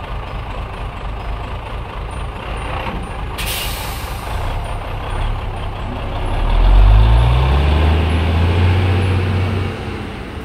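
Heavy truck engine sound effect running low, then revving up and getting louder from about six and a half seconds in, with a short burst of hiss about three and a half seconds in.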